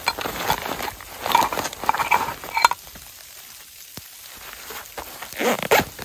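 Fabric pouch rustling as hands rummage inside it and pull an item out, in irregular bursts during the first half and again near the end, with a quieter pause in between.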